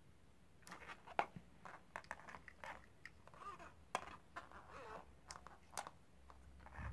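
Faint handling noise of wires and small plastic parts: scattered clicks, crackles and rustles as hands move a quadcopter's receiver and its wire leads on the frame.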